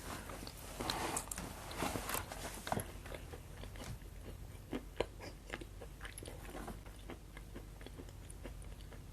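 A person chewing food close to the microphone, with small irregular crunches and wet clicks, a little busier in the first few seconds.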